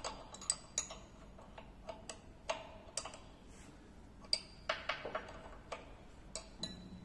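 Open-end wrench and metal hose fitting clicking and clinking in irregular sharp taps as the oil hose is disconnected from the hydraulic pump station, a few of the taps giving a short metallic ring.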